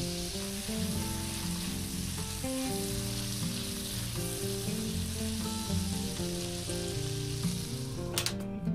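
Peanut sauce sizzling and bubbling in a frying pan as it is stirred with a spatula. The sauce is being cooked down until it thickens and starts to release its oil. The sizzle stops abruptly just before the end, with instrumental music underneath.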